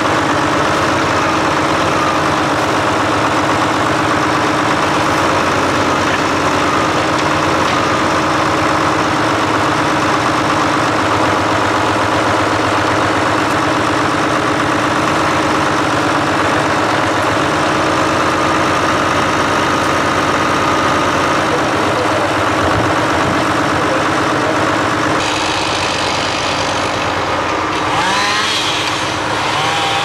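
The County 1124 tractor's six-cylinder Ford diesel engine runs steadily while its loader crane's hydraulics work, lifting logs, with a steady whine held for a few seconds around the middle. Near the end, rising and falling whines join in.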